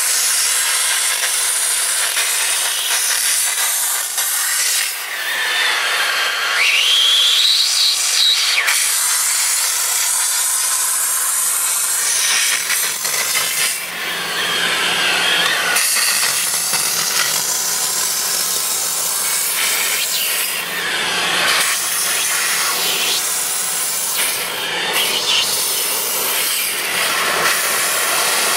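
Steam cleaner's upholstery hand tool jetting steam onto a fabric car seat, a loud steady hiss. A short rising whistle comes about six to eight seconds in.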